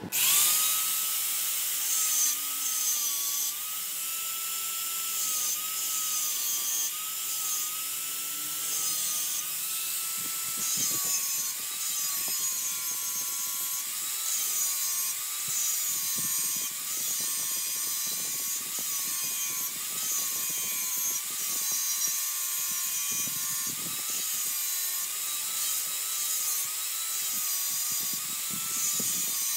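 Angle grinder with a thin green disc grinding the end of a fluted steel milling cutter: a steady high motor whine that wavers slightly in pitch, over the hiss of the disc on the steel. It starts suddenly.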